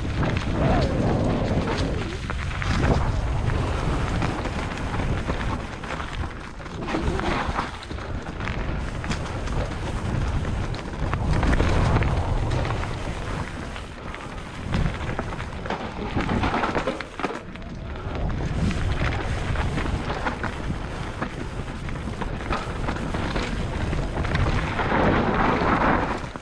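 Wind buffeting the microphone of a camera carried on a fast downhill descent, a continuous low rumble that surges and eases every few seconds, with scattered knocks and rattles from the rough ground.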